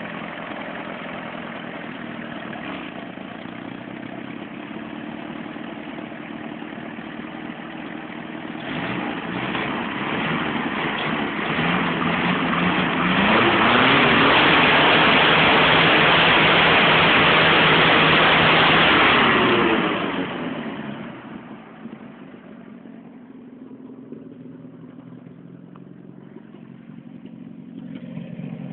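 Chevrolet Opala engine idling, then revved up, held at high revs for about six seconds and let fall back to a quieter idle.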